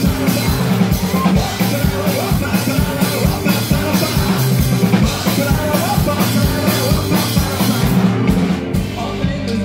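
Live rock band music heard from within the crowd, driven by a fast, steady drum beat under guitars. Near the end the cymbals drop out and the music thins.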